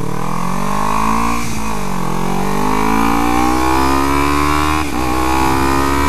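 Kawasaki Ninja 300's parallel-twin engine accelerating away from a stop, its revs rising. They drop briefly for an upshift about a second and a half in and again near five seconds, then climb again.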